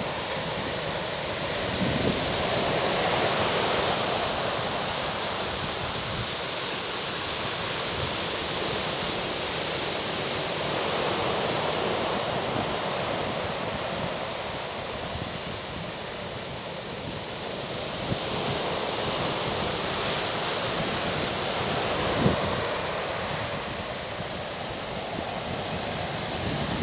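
Ocean surf breaking on a beach: a steady wash that swells and eases every few seconds. Wind buffets the microphone in a few brief low thumps.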